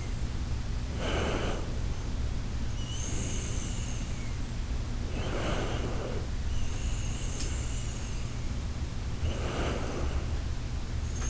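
A sleeping Shiba Inu snoring in a slow, even rhythm, about one breath every four seconds. Each breath is a rough snort, followed about two seconds later by a high, whistling breath through the nose.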